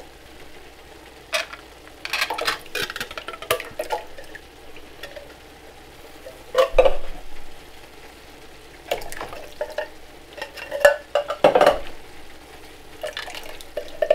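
Metal cans and a spoon clinking and scraping against a cooking pan while canned pasta sauce is emptied in and stirred. The clatters come irregularly in clusters, over a faint sizzle of food frying.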